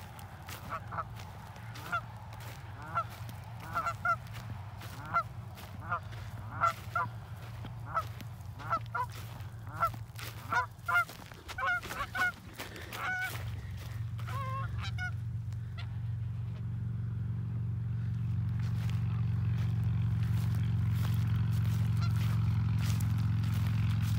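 Canada geese honking over and over, about one honk a second, coming faster for a few seconds before they stop about two-thirds of the way through. A steady low rumble then builds and grows louder.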